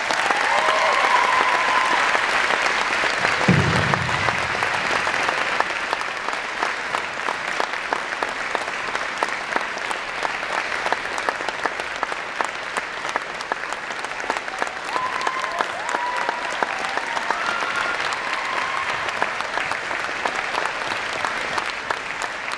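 Crowd applauding: a dense clatter of many hands clapping, loudest at first and slowly easing off. A short low thump sounds about three and a half seconds in.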